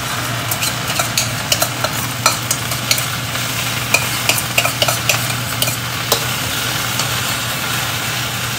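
Water spinach sizzling in a thin, hot wok as fermented-tofu sauce is poured over it: a steady frying hiss with a quick run of sharp crackles and ticks that thins out after about six seconds. A low steady hum runs underneath.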